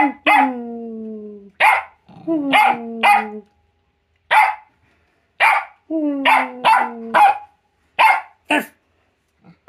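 Jack Russell terrier barking playfully: about a dozen short sharp barks, with three longer calls in between that slide down in pitch.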